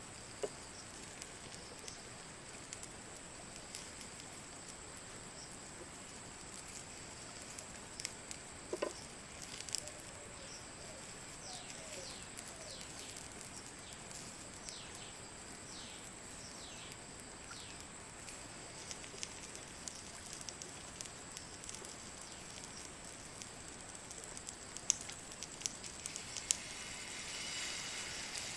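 Forest ambience: a steady, faint high-pitched insect drone with scattered small clicks and crackles, and a soft hiss that swells near the end.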